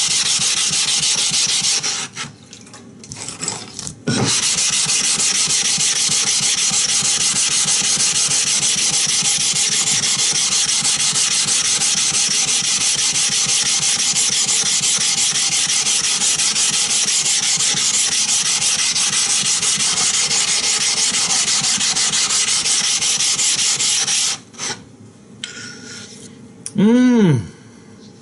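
A water stone being flattened on a coarse 120-grit flattening stone with abrasive powder: a steady, rasping rub of stone on stone, which breaks off briefly about two seconds in and stops about four seconds before the end. Near the end comes a short hum that rises and falls in pitch.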